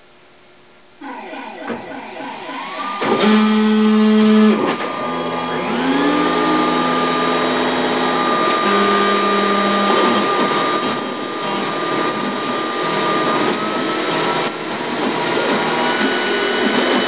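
A ShopBot Desktop CNC router starting a carving run. After about a second of quiet, the spindle motor's whine rises and settles to a steady pitch. A vacuum dust-collection hose runs with it, and the gantry's drive motors hum in short on-and-off spells as the machine moves the bit.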